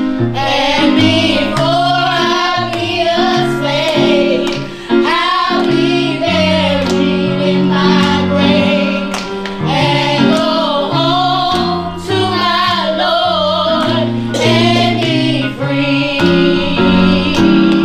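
A small group of women and girls singing a gospel-style song together with vibrato, over an instrumental accompaniment of held bass notes that move step by step.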